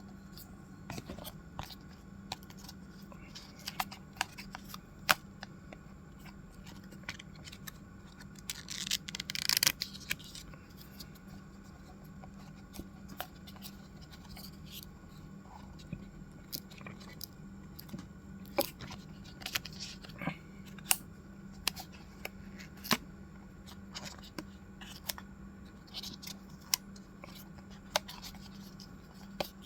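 Stationery being unpacked and handled: scattered sharp clicks and taps of small items, with a louder rustling tear of packaging about nine seconds in, over a steady low hum.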